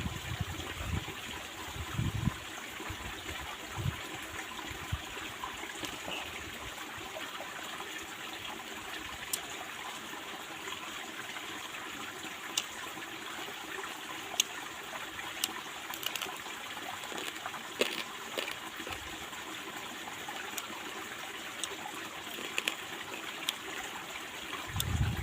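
Small stream babbling and trickling over rocks, a steady even rush of water, with a few faint clicks and soft knocks scattered through it.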